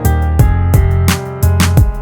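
Background music with a steady drum beat, a bass line and held instrument notes.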